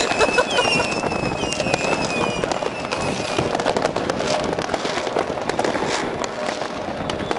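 Many fireworks and firecrackers going off at once: a dense run of bangs and crackling, with a thin high whistle over roughly the first three seconds.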